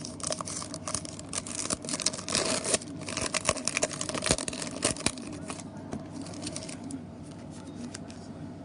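Crackling and tearing of trading-card pack wrappers and plastic as cards are handled, in dense rapid crackles for about six seconds, then quieter.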